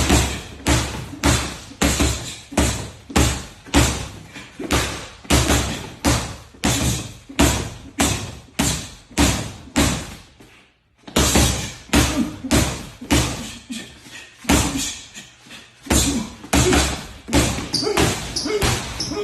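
A boxer's punches landing in a steady rhythm, about two a second, with a short break near the middle before they resume.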